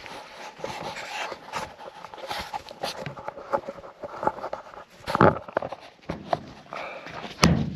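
Irregular footsteps and handling knocks on a handheld camera while walking, with two louder thumps, one about five seconds in and one near the end.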